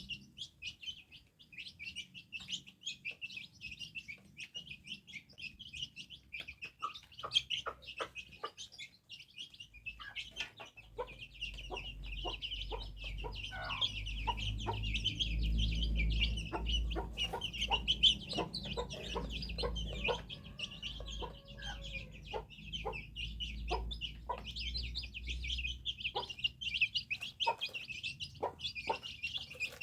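Bird chirping rapidly and continuously in short, high-pitched notes, with sharper single calls mixed in. A low rumble runs through the middle stretch.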